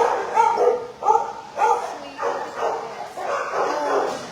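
Many shelter dogs barking and yipping at once, the barks coming several a second and overlapping, with some whining calls near the end.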